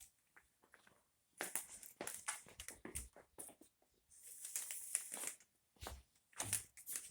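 A broom sweeping across the floor in short, irregular strokes, rustling and scraping, with one longer swish about four seconds in.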